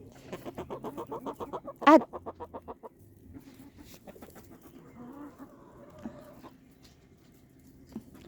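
Chickens clucking: a rapid run of clucks, about eight a second, with one loud squawk about two seconds in, then softer scattered clucks.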